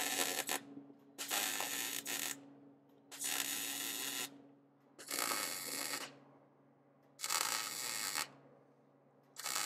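MIG welder arc welding a steel engine mount to the frame in short passes: about five bursts of crackling arc, each about a second long and roughly two seconds apart. A steady low hum runs underneath.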